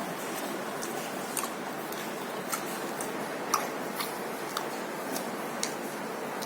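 Person eating a chicken shawarma: scattered soft, irregular clicks of chewing and handling over a steady background hiss.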